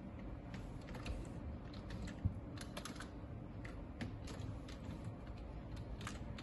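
Typing on a computer keyboard: irregular key clicks, some in quick runs, over a low steady hum, with one louder low knock a little over two seconds in.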